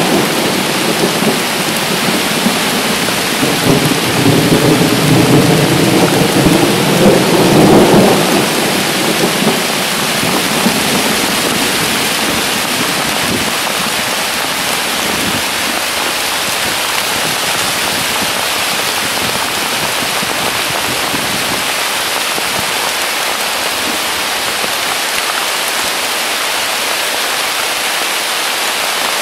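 Heavy downpour hissing steadily. A long roll of thunder rumbles over it for the first eight seconds or so and dies away by about ten seconds in.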